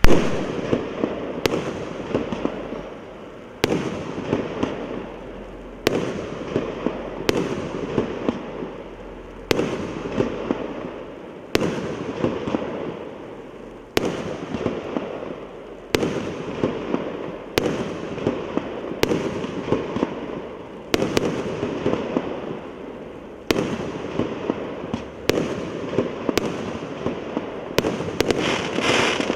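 A 1.25-inch, 19-shot firework cake (Р7078 «Курский соловей») firing its shots one after another, about every one to two seconds. Each launch thump is followed by a spread of smaller pops and crackling that fades before the next shot.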